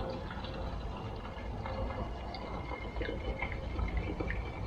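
Two-stroke fuel mix being poured into a Shindaiwa 488 chainsaw's fuel tank, a steady liquid fill with small ticks and drips.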